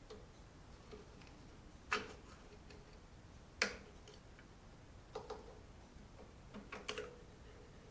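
A few sharp metal clicks and taps, a second or two apart, from tools and parts as a small-engine carburetor is taken apart. The loudest two come about two and three and a half seconds in.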